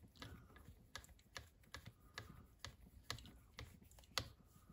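Faint, irregular small clicks and ticks of a hex driver turning a screw into a plastic RC car chassis, with light knocks of the plastic parts being handled.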